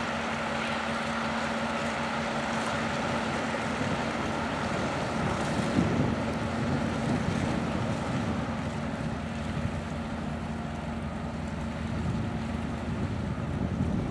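Harbour tugboat's diesel engine running with a steady hum that fades about three quarters of the way through as the tug moves off. Gusts of wind buffet the microphone.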